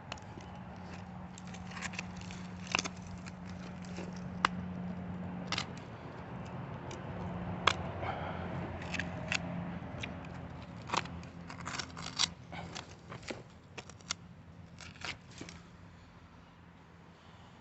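Irregular scraping and sharp clicks of hand-digging in dirt with a mussel shell used as a scraper. A faint steady low hum sits under them for roughly the first half.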